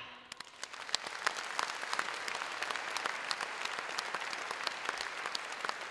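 Audience applauding, the clapping swelling over the first second and then holding steady, with single claps standing out.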